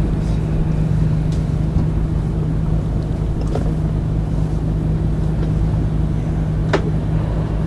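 A boat engine running with a steady low drone, with a single sharp click near the end.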